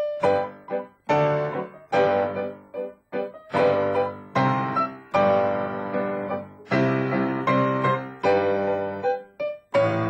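Piano playing a lively bourrée in short, bouncy phrases, with brief breaks about one and three seconds in.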